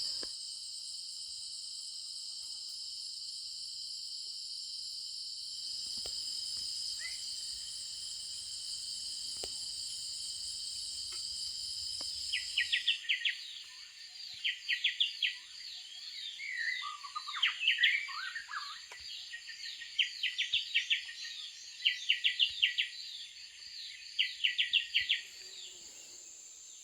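Steady high-pitched chorus of crickets and other forest insects. About 13 seconds in it switches abruptly to a different insect chorus, with birds calling over it in quick repeated chirps and short falling whistles.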